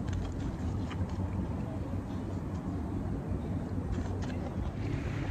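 Steady low outdoor rumble with a few faint, short clicks.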